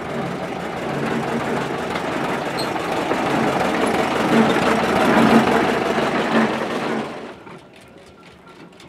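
Small narrow-gauge diesel locomotive engine running and growing louder as it passes close by, then cutting off abruptly about seven seconds in. After the cut, a much quieter, rapid mechanical ticking from a steam roller's engine.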